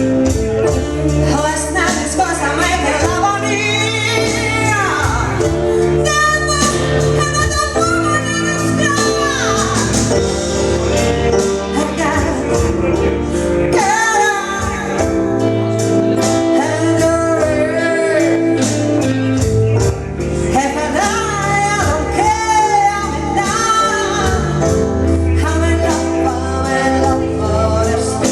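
Music with singing: a song with female and male vocals over a steady bass and chords.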